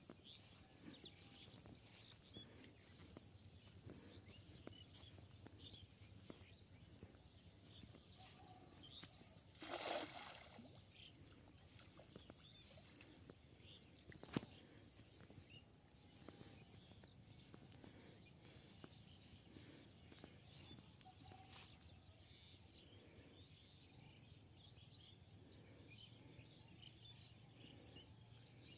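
Quiet outdoor ambience with faint bird calls and a steady high hiss. About ten seconds in, a cast net lands on the pond water with a short splash, and a single sharp click follows a few seconds later.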